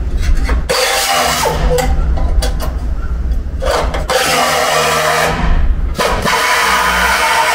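Pneumatic spot-weld drill cutting into the steel seam of a Toyota Hiace's rear quarter panel to drill out the spot welds. It runs in several stretches with short breaks between them.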